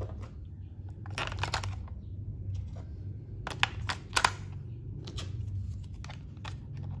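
Sharp plastic clicks and taps of batteries being fitted into a toy train's battery compartment, in two main clusters, over a steady low hum.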